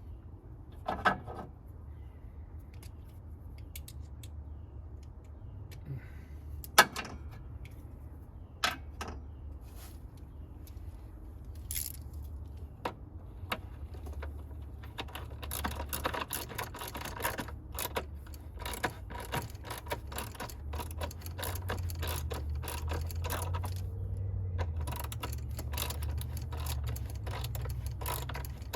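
Hand socket ratchet clicking in short runs as the truck battery's hold-down is tightened, with scattered sharp metal clinks from the tools and hardware.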